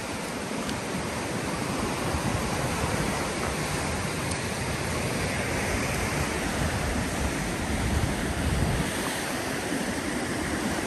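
Ocean surf washing against the rocky shoreline, a steady rush of noise that swells slightly about eight seconds in, with some wind on the microphone.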